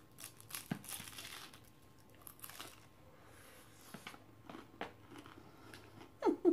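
Biting into a crunchy keto taco shell, a run of crackly crunching in the first second or so, then chewing with scattered smaller crunches.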